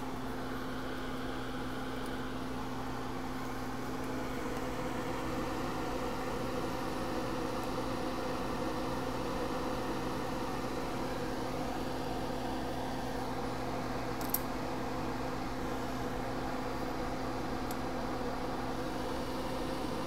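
Fume extractor fan running with a steady hum. One short click about 14 seconds in.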